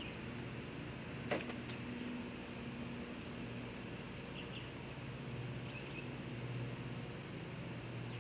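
A steady low hum, with faint bird chirps now and then and one sharp click about a second in as the bolts are handled.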